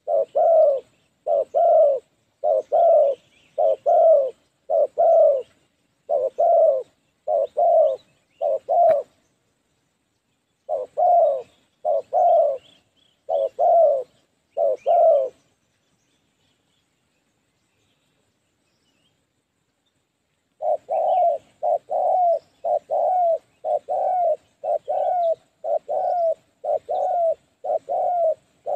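Spotted dove cooing in a fast, regular series of short notes, each dropping in pitch, often paired at about two a second. The cooing breaks off for about five seconds past the middle, then starts again. There is a single sharp click a few seconds before the break.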